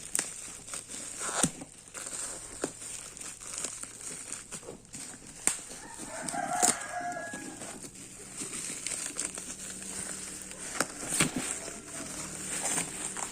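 Scattered clicks, taps and rustles of a toy parcel being handled and opened by hand. About six seconds in comes a brief pitched call in the background, likely a chicken.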